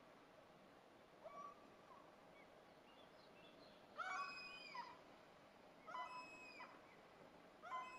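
Common gulls calling: a faint call about a second in and a few thin high notes, then three stronger drawn-out calls, each under a second long, about two seconds apart from halfway through.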